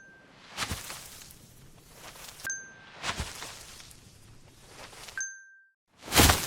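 Added sound-effect track: a short, bright, bell-like ding twice, about two and a half seconds apart, between swelling surges of rushing noise; the loudest surge comes near the end.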